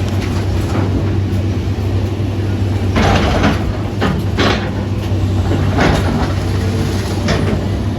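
An engine running steadily with a low hum, with four short, noisy crunches or rattles over it.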